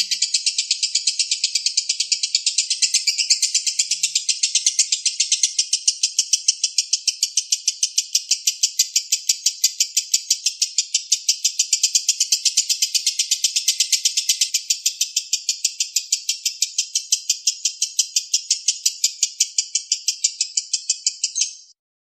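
Lovebird chattering in one long, unbroken run of rapid, evenly spaced high notes, several a second, that cuts off abruptly near the end.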